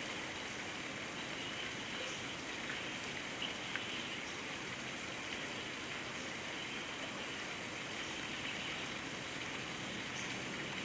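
Steady hiss of water, rain-like and even, with a few faint ticks a little over three seconds in.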